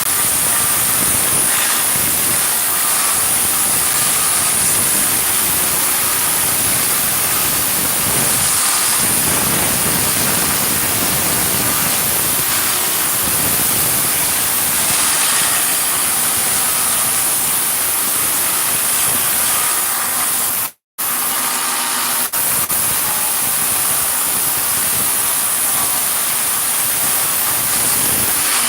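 Woodworking power tool running steadily: a loud, even noise with a faint high whine. It cuts out to silence for a moment about 21 seconds in.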